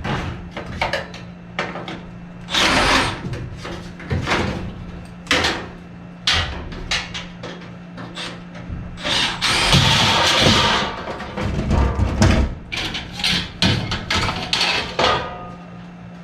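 Work noises from hand tools and parts being handled: a string of knocks and clatters, with a longer scraping or rushing noise about three seconds in and a louder one lasting over a second about ten seconds in, over a steady low hum.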